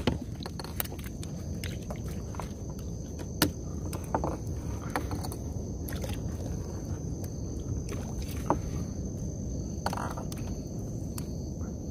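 A fishing net being lifted and gathered by hand in a small wooden boat: scattered sharp clicks and knocks, and a short swish of mesh about ten seconds in. Under it runs a steady low rumble of water and wind, with a faint steady high whine.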